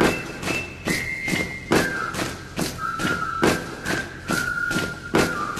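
Dance music with a hard, steady percussive beat of about two hits a second and a high, whistle-like lead held in long notes.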